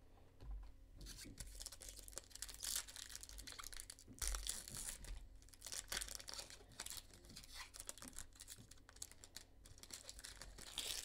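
Foil wrapper of a baseball card pack crinkling and tearing as it is ripped open by hand, a run of irregular crackles and short rips.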